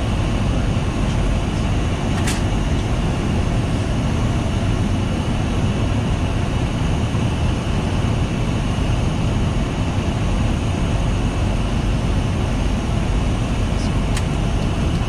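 Steady flight-deck noise of a Boeing 737-800 in flight on approach, mostly a constant rush of air, heard inside the cockpit. A faint click about two seconds in and another near the end.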